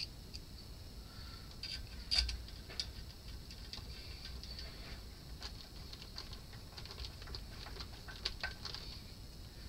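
Screwdriver turning the mounting screws of TO-3 metal-can power transistors on an amplifier's heatsink, giving scattered small metallic clicks and scrapes, the loudest about two seconds in.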